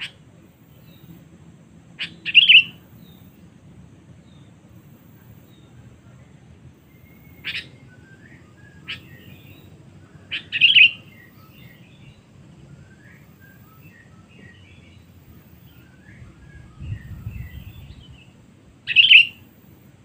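Sooty-headed bulbuls calling: three loud, short, bright call phrases about eight seconds apart. Between them come a couple of sharp single notes and scattered soft chirps.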